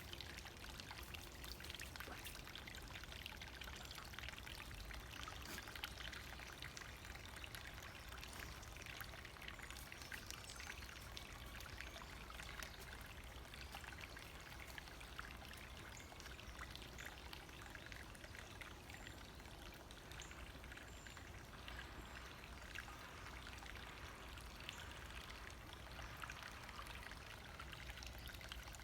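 Small brook bubbling and trickling over stones, a steady stream of water.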